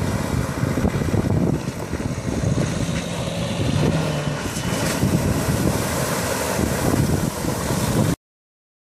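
Dacia Duster SUV driving through shallow muddy water and past close by, engine running and tyres churning through the water, with wind buffeting the microphone. The sound cuts off suddenly near the end.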